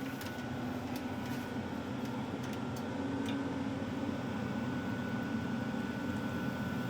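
Catfish pieces frying in hot oil: a steady sizzle with a few faint pops.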